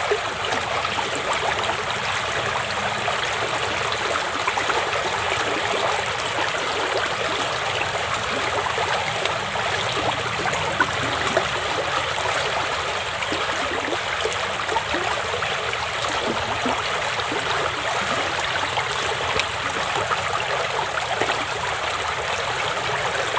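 A small stream flowing and trickling steadily.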